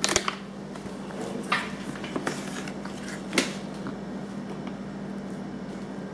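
A few short, sharp clinks and knocks of cutlery against dishes at a meal: one near the start, then three more spread over the next few seconds, over a steady low hum.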